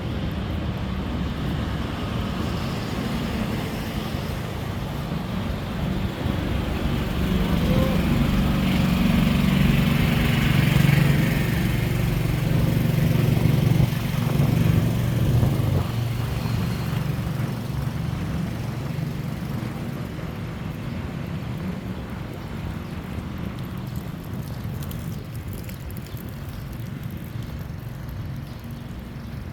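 City street traffic: a steady low rumble of road vehicles that swells as a vehicle passes close in the middle, then fades away.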